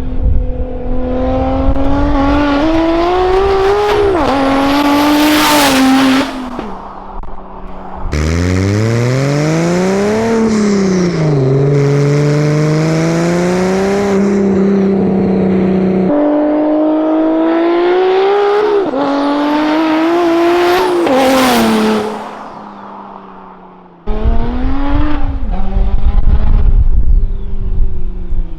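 The single-turbo BMW 335i's straight-six engine is pulled hard several times, its pitch climbing under acceleration and dropping back at each shift or lift. A high whistle rises near the top of two of the pulls. The sound is broken into short sections by abrupt cuts.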